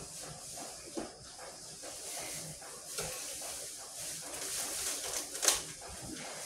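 Kitchenware being handled at a sink counter: a few light knocks and clatters over a faint steady hiss, the loudest knock a little past halfway.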